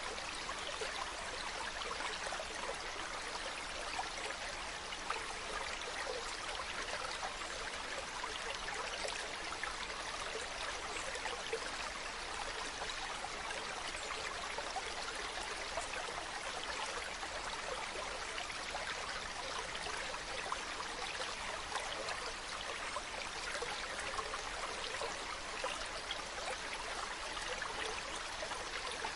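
Mountain stream running water, a steady babbling and rushing.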